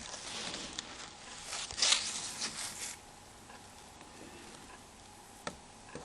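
Scraping and rustling of small tools and plastic parts as a Nokia N95 mobile phone is worked apart, loudest about two seconds in, then quieter with a faint click later on.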